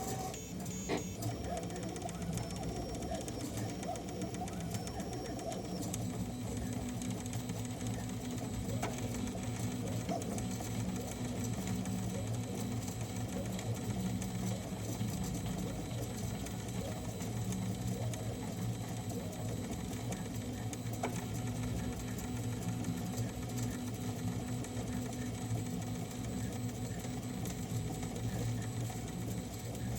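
A small machine running steadily without pause, with a fast, even repeating action.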